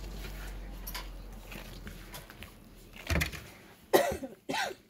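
Gloved hands kneading and squeezing crumbly glutinous-rice-flour and sweet-potato dough in a stainless steel bowl: soft crumbling and rustling over a low hum, with a few sudden louder knocks and squeaks about three and four seconds in.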